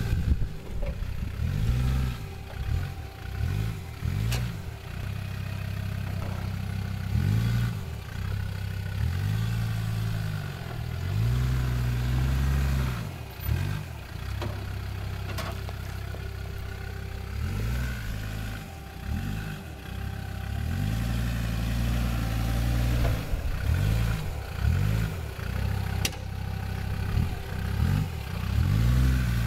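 Land Rover Discovery 2 Td5's 2.5-litre five-cylinder turbodiesel engine under load, revving up and easing off again and again as the truck crawls through deep ruts. A few sharp knocks come through at intervals.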